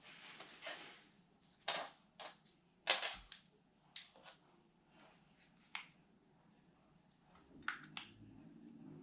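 A series of irregular sharp clicks and knocks, about ten in all, the loudest about three seconds in.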